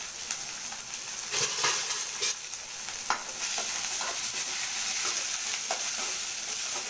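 Chopped onions, curry leaves and whole spices sizzling steadily in hot oil in a steel pot, with a few scattered scrapes and clicks as they are stirred.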